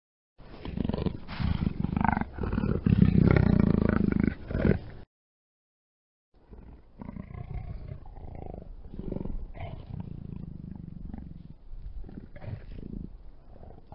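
Panther (big cat) roaring and growling, a sound-effect recording: one loud, rough roar lasting about four and a half seconds, then a short silent gap, then a longer stretch of quieter, rumbling growls.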